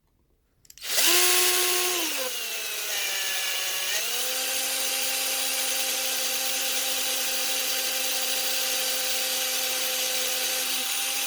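Small electric drill drilling out the rivet post on the base of a diecast model car. Its whine starts about a second in, drops in pitch as the bit bites, then runs steady until it stops right at the end.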